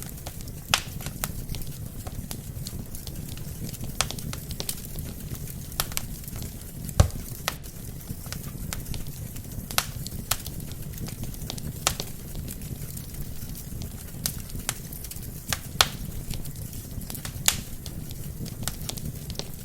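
Wood fire crackling: sharp pops and snaps at irregular intervals over the steady low rumble of burning logs. The loudest pop comes about seven seconds in.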